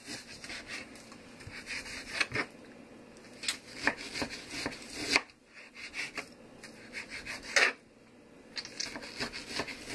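Kitchen knife slicing through raw chicken breast on a cutting board: the blade rubbing and scraping through the meat, with irregular sharp taps as it meets the board, the loudest about three quarters of the way through.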